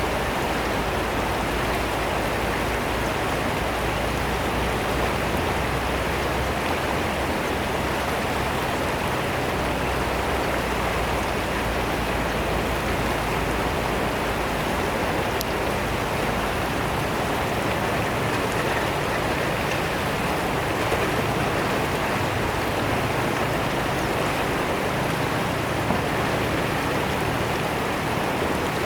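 Fast-flowing river water rushing and splashing in a steady, even wash of noise.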